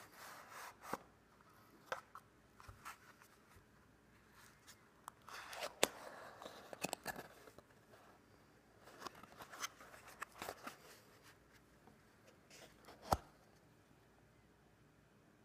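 Cardboard packaging being handled and opened: a sleeve slid off a small box and a flap lifted, with scraping rustles and scattered sharp clicks and taps. The loudest clicks come about six seconds in and again just after thirteen seconds.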